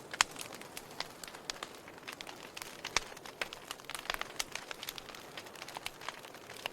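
Wood fire burning in a fireplace: irregular sharp crackles and pops over a soft hiss, with a louder pop about a quarter second in and another around the middle.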